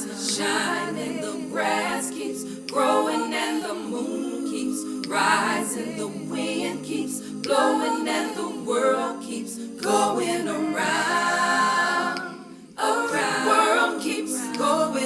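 A cappella vocal music: voices singing without instruments.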